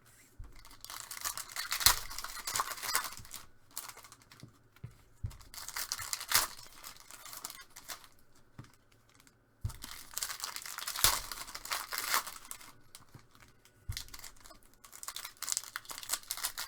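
Trading-card packaging being torn open and crinkled by hand, in about four spells of ripping and crackling with short pauses between.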